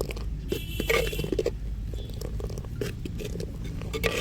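Spoon stirring thick semolina porridge in a clay pot: scattered soft clicks and short scrapes over a steady low hum.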